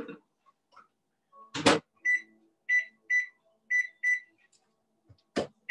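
Microwave oven being set: a loud thud as the door shuts, then five short electronic keypad beeps as the cooking time is entered, and a click near the end.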